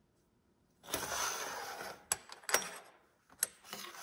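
Metal parts of an underfolder stock and buffer tube being handled and fitted together on a stainless steel table: a scraping rub about a second in, then a few sharp metallic clicks and knocks.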